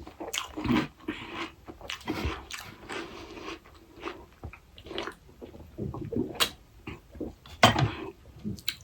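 Close-miked eating sounds: biting and chewing on crisp pani puri, mixed with irregular short clicks and taps of food being handled. The loudest tap comes a little before the end.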